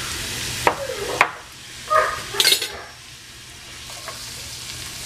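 Diced onion sizzling in olive oil in a cast-iron skillet, being stirred with a wooden spoon near the end. A few short pitched vocal sounds come over the sizzle about one second and two to two and a half seconds in.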